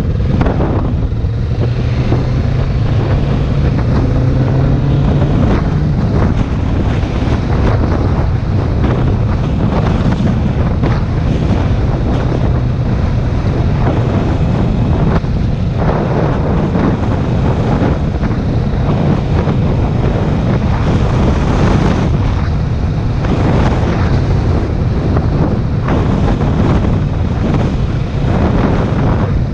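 Heavy wind buffeting the microphone of a moving motorcycle, over the steady low running of its engine.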